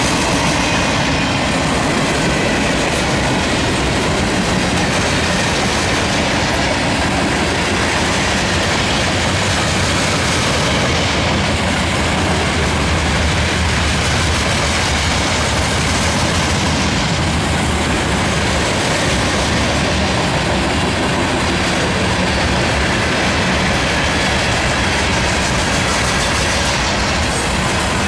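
Freight train of boxcars and covered hoppers rolling past at speed: a steady, loud rumble and clatter of steel wheels on the rails.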